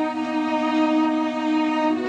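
Orchestral background score: bowed strings holding sustained, tense chords.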